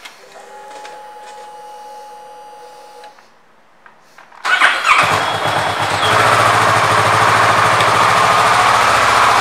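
Kawasaki Ninja 650 parallel-twin engine being started: a faint steady whine lasts about three seconds, then about four and a half seconds in the starter cranks and the engine catches, settling into a steady idle.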